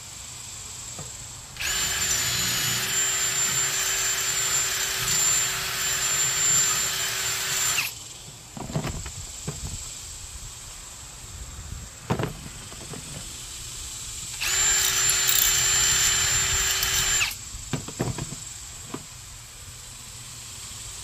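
Cordless drill running in two long bursts, about six seconds then about three, with a steady motor whine, as it bores out a bolt hole in a metal alternator bracket. A few short, sharp knocks come between the runs.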